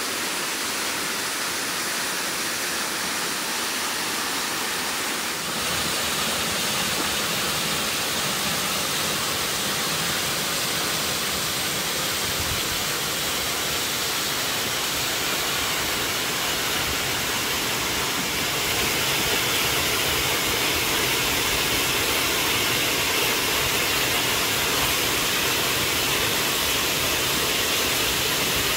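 Waterfall rushing: steady noise of falling water that grows a little louder about a fifth of the way in and again past halfway.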